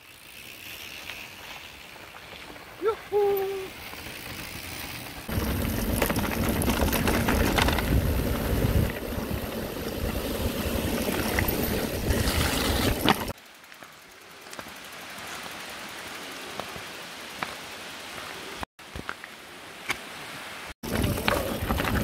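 Electric mountain bike riding a gravel forest road and through a wet stretch: tyre crunch and rushing wind noise, loudest in the middle, broken by abrupt cuts between clips.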